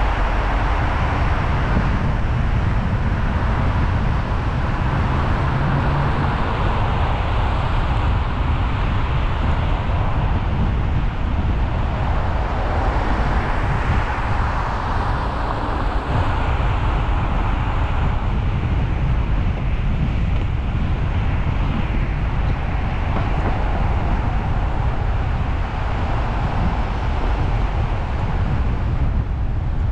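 Steady low rumble of a car driving along city streets: road and traffic noise with wind buffeting the microphone of a car-mounted camera.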